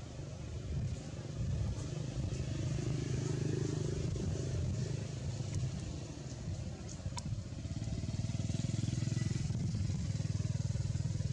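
An engine running steadily with a low, even drone, growing a little louder about eight seconds in.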